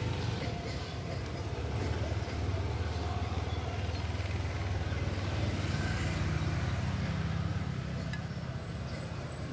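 A motor vehicle engine running steadily, a low drone that rises a little in pitch around the middle and settles again near the end.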